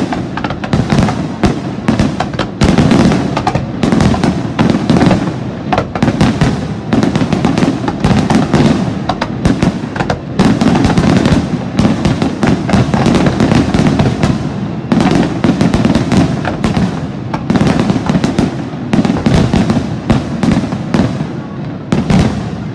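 Aerial firework shells bursting in a continuous heavy barrage, several overlapping bursts a second, dying away at the very end.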